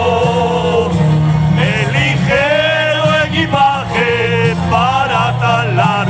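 Live band music: a wavering melody line with vibrato over steady bass notes that change with the chords.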